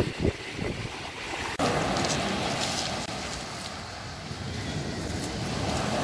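Sea surf washing on the shore, with wind buffeting the microphone in low thumps near the start. The sound changes abruptly about a second and a half in, as at a cut.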